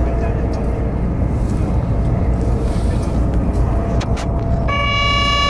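Steady low rumble of engine or traffic noise. Near the end a steady pitched tone with several overtones starts suddenly and holds.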